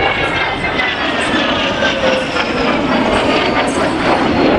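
Jet engine of a CASA C-101 Aviojet trainer passing overhead, a loud roar with a whine that falls steadily in pitch as the jet goes by.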